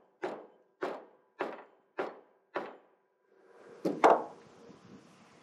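Mallet tapping on the end of a hydraulic cylinder's piston rod through a rag: five even, dull knocks a bit under two a second. Near four seconds in come two louder knocks close together as the mallet is set down on the wooden trailer deck.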